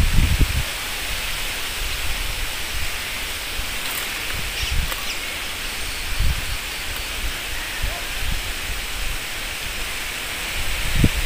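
Leafy branches rustling as small fruits are picked off them into a plastic bag, over a steady outdoor hiss, with a few low bumps near the start and again near the end.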